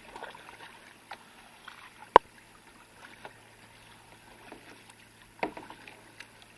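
Kayak being paddled: faint, quiet water noise from the strokes, broken by a single sharp knock about two seconds in and a softer knock near the end, with a few light ticks between.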